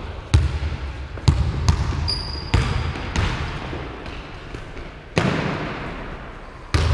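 A basketball bouncing on a hardwood gym floor in irregular dribbles, each bounce echoing around the large hall. A short high squeak comes a little after two seconds in.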